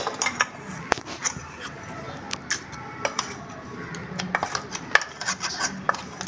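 Steel spoon clinking and scraping against a steel mixer-grinder jar while ground onion powder is tipped out into a plastic container, with scattered light clicks and taps and a sharper clink about a second in.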